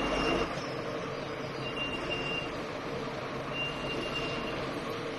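Mobile crane's engine running steadily during a heavy lift, with a high warning beep sounding for just under a second roughly every two seconds.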